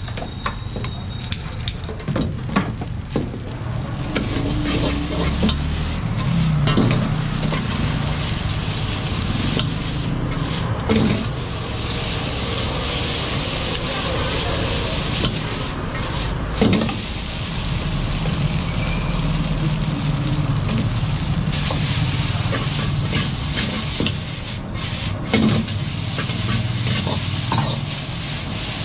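Noodles and vegetables sizzling in a steel wok while a long-handled steel ladle stirs and tosses them, scraping the pan with irregular clanks of metal on metal.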